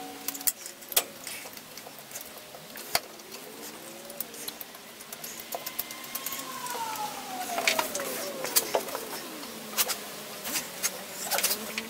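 Scattered clinks and clicks of tools and metal being handled while working inside a car's engine bay, one knock sharper about three seconds in. A faint whine rises and falls in pitch several times behind them, one long slow falling glide in the middle.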